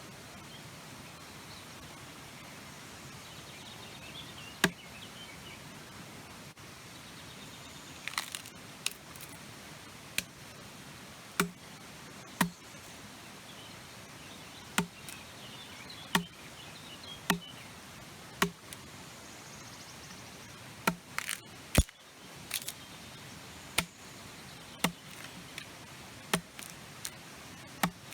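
An axe chopping wood: a string of sharp, single strikes, roughly one a second, starting about five seconds in and coming more often in the second half.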